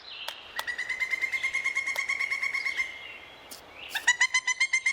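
Woodpecker drumming its beak on a tree trunk: two runs of rapid, ringing taps, about eight a second. The second run starts about four seconds in and is louder.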